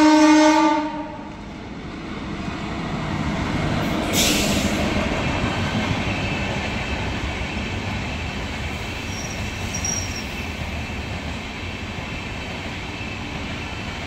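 The end of a loud, steady locomotive horn blast, lasting about the first second. An Indian Railways express of LHB coaches then rushes in and passes, with a brief hissing burst just after four seconds and then a steady rumble of the coaches rolling by on the rails.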